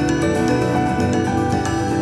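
Background music: a calm instrumental piece with held notes and a steady pulse of struck notes.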